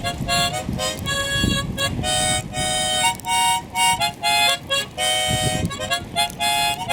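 Music: a melody of short held notes that change a few times a second, with a low rushing noise underneath.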